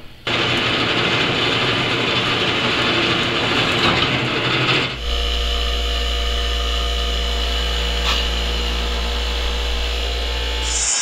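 A power tool running with a loud, rough noise, then, about five seconds in, it gives way to a steady low hum with a few held tones: a hydraulic pipe bender's power unit running while it bends a steel pipe.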